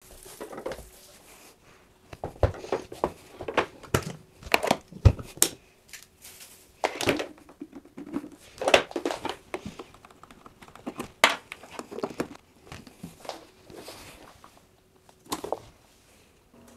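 Handling noises as a plastic compressor cooler box is carried, set down and its lid touched: irregular knocks, clicks and some crinkling, over a faint steady hum.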